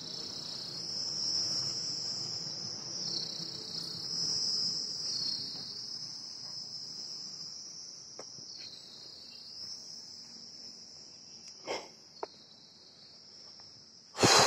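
Steady, high-pitched buzzing of insects, swelling and dipping every few seconds. A faint click comes about two thirds of the way in, and a loud, sharp knock comes near the end.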